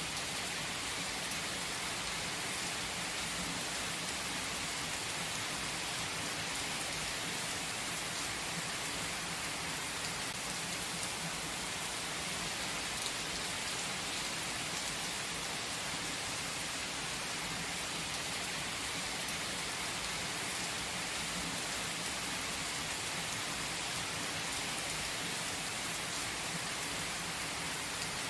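Steady rain falling: an even, unbroken hiss with a few faint, sharper drop ticks scattered through it.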